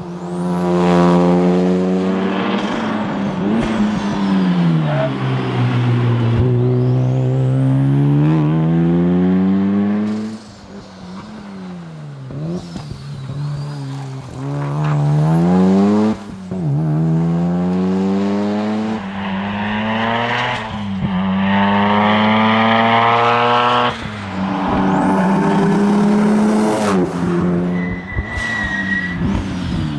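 1995 Mazda RX-7 SP's twin-rotor rotary engine being driven hard at rally speed. It revs up and falls away again and again as the car accelerates, changes gear and slows for corners, with sudden drops in revs at about 10 and 16 seconds in. A brief high-pitched squeal comes near the end.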